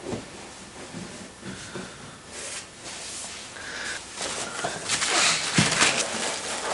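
Packaging rustling and crinkling as a gift is pulled out of a cardboard box, getting louder over the last two seconds.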